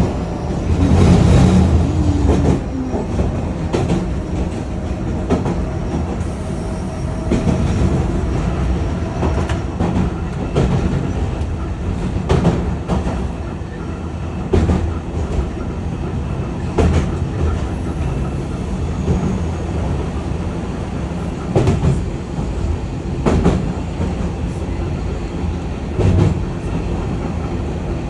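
Hankai Tramway streetcar running along the track with a steady low rumble, its wheels clicking over rail joints every few seconds. A faint motor whine comes and goes in the first third.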